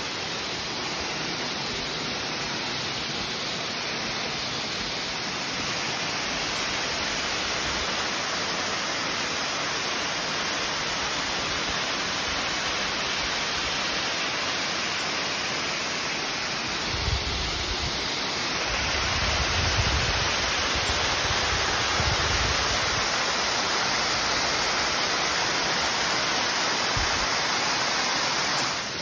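Waterfall rushing as a steady, even wash of water noise, growing a little louder past the middle, with a few low bumps on the microphone.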